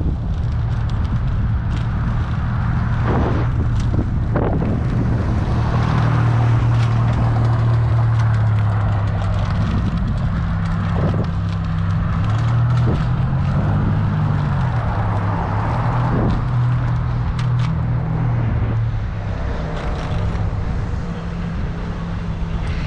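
A vehicle's engine running on the move, its pitch rising and falling as speed changes, with wind and road noise.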